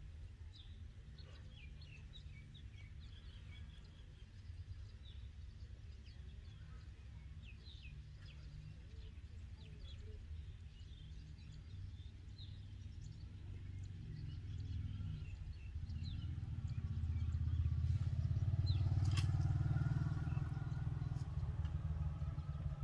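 Small birds chirping in short calls over a steady low rumble. The rumble swells and fades as a motor vehicle passes, loudest about three-quarters of the way through.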